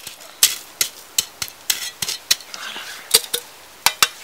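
Metal utensils knocking and clinking against metal camp cookware: about a dozen sharp, irregular clinks.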